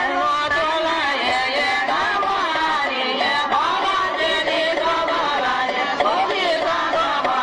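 Music with a voice singing or chanting a flowing melody.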